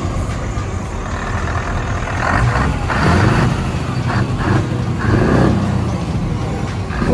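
Scania 164L 580's V8 diesel engine running at idle, with several short surges of louder noise that sound like brief revs.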